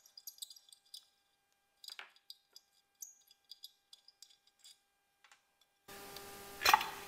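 Faint scattered clicks and ticks of a small screw being turned out of a septic aerator air pump's plastic lid and handled, with a slightly stronger click about two seconds in. Near the end a louder knock as the plastic lid is gripped to be lifted off.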